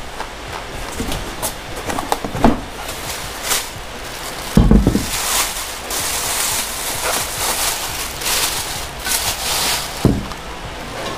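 Packing plastic crinkling and rustling in irregular crackles as a motorcycle alloy rim is lifted from its cardboard box and handled in its wrapping. A heavy thump comes a little under halfway and a sharper knock near the end.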